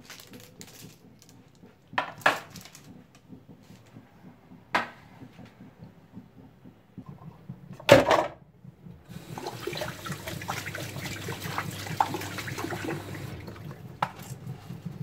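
Dishes and a metal baking pan knocking in a stainless steel sink: a few sharp clatters, the loudest about eight seconds in. Then the tap runs for about four seconds while a mixing bowl is washed, with small scrubbing clicks, and stops shortly before the end.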